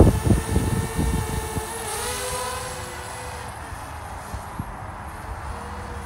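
DJI Spark quadcopter's propellers whining, a steady hum whose pitch wavers about two seconds in, then fading as the drone climbs away. Wind buffets the microphone in the first second or so.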